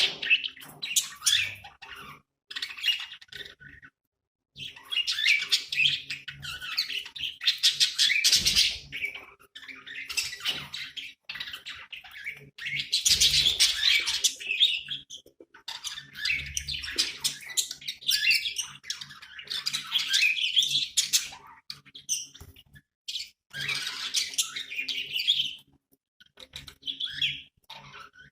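Budgerigars chattering and warbling in fast, dense bouts of high chirps and squawks, broken by short pauses.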